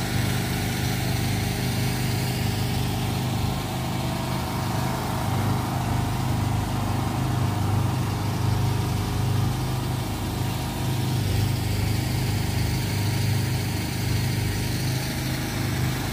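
Raft-house power generator engine running steadily: a constant, even engine drone with no change in speed.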